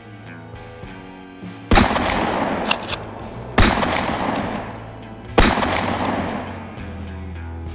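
Three rifle shots, evenly spaced a little under two seconds apart, each trailing a long echo that dies away slowly, with background guitar music underneath.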